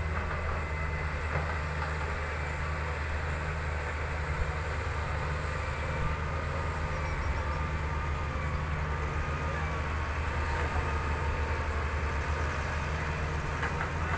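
Diesel engine of a Fiat-Hitachi 200.3 hydraulic excavator running steadily while it digs and swings: a deep, even drone, with a faint wavering whine partway through.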